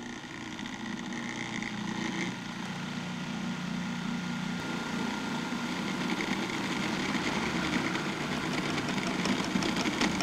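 Food processor motor running as it mixes pizza dough, getting gradually louder, with a rapid rhythmic beating building up in the second half.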